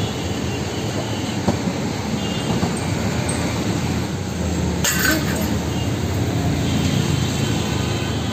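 Steady rumble of busy street traffic with a murmur of voices, and one short, sharp clatter about five seconds in.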